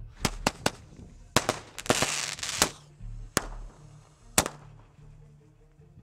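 A string of about eight sharp cracks and bangs, irregularly spaced, the loudest a little past four seconds in. A hissing rush comes around two seconds in, over a low, steady music bed.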